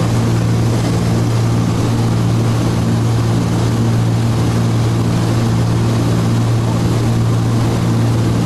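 Cabin drone of a Cessna T303 Crusader's twin turbocharged six-cylinder piston engines and propellers in steady cruise: a loud, constant low hum with a slow, even pulsing.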